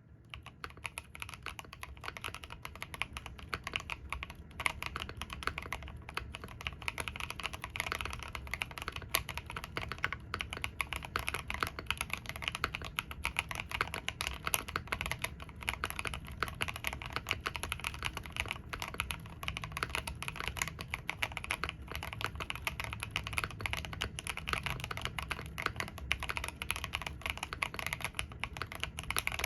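Mechanical keyboard with Fantasy Virus switches and Aifie SA-profile shimmer green keycaps being typed on continuously, a rapid, steady stream of keystroke clacks.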